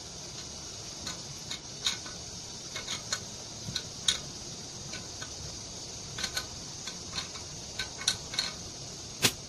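Irregular small metallic clicks and ticks from a T-handle hex wrench turning screws into a Honda GX35 four-stroke trimmer engine during assembly, with one sharper click near the end, over a steady background hiss.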